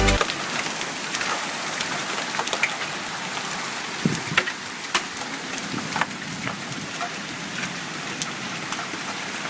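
Steady hiss of falling rain, with scattered sharp taps of drops striking a hard surface.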